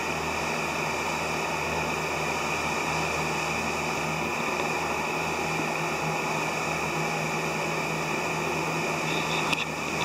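Steady hum and hiss of running machinery, like a fan, unchanging throughout, with a short knock near the end.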